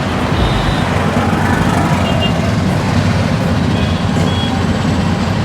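Steady low mechanical rumble, with a few faint short high beeps.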